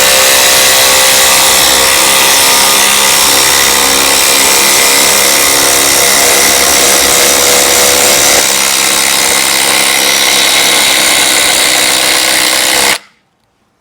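Two cordless impact drivers, a Hercules 20 V brushless and a DeWalt DCF850, hammering together on speed 3 as they drive fasteners in a race. About eight and a half seconds in the sound drops a step as one of them stops, and the other runs on until it cuts off suddenly about a second before the end.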